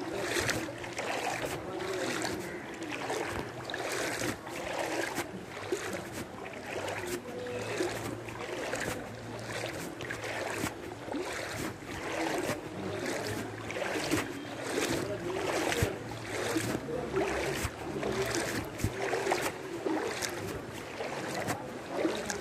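Sloshing splashes of someone wading through shin-deep floodwater, a regular swish with each step, about two a second.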